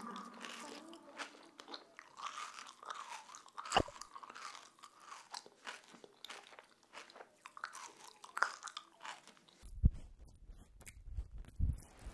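Irregular crunching and crackling, many small sharp crunches at an uneven pace. About ten seconds in it cuts to a low rumble with a few scattered knocks.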